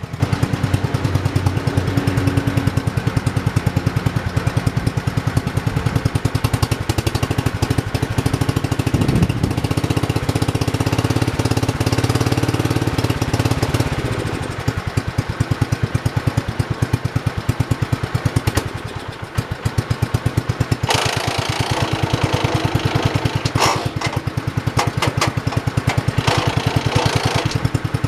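1968 John Deere 110 garden tractor's single-cylinder engine running with a rapid, steady chug. The sound eases off briefly about two-thirds of the way through, and a rougher hiss joins it near the end.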